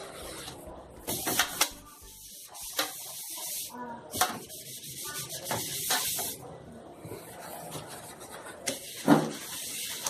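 Cleaning a refrigerator by hand: rubbing, scrubbing strokes with a series of knocks and clatters as parts are handled, the loudest a thump about nine seconds in.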